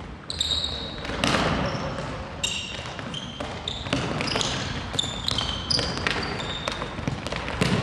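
Indoor shoes squeaking on a hardwood court floor in many short, high chirps, mixed with the thuds of a futsal ball being kicked and bouncing and the slap of running footsteps.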